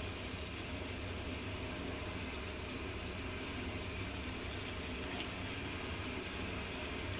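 Chicken cooking in an aluminium pot on a portable gas stove: a steady hiss over a low rumble that does not change.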